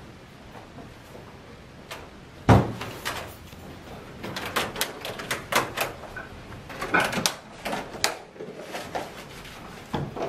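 A loud thump about two and a half seconds in, then a run of irregular knocks and clicks.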